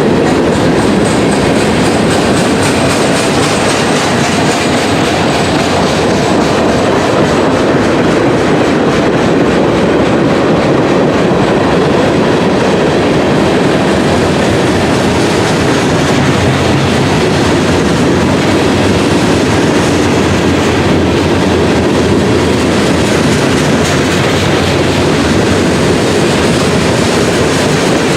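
CSX freight train's cars rolling past close by, a steady loud rumble and clatter of steel wheels on the rails.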